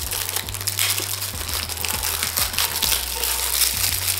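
Thin plastic bag crinkling and rustling as it is handled and paper booklets are pulled out of it, a dense crackle throughout.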